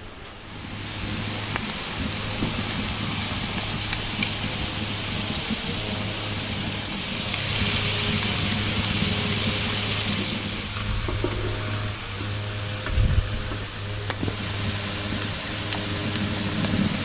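Chanterelle mushrooms and chopped onion sizzling in oil and butter in a frying pan, the hiss getting louder for a few seconds about halfway through as the onion goes in. A single knock near the end.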